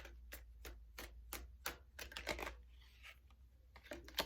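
A tarot deck being shuffled by hand: a steady patter of card slaps, about three a second, giving way after about two seconds to softer rustling of cards.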